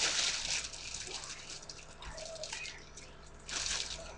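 Rustling, crinkling handling noise as a hamburger roll is taken and handled: loudest at the start, fading, with another short burst near the end.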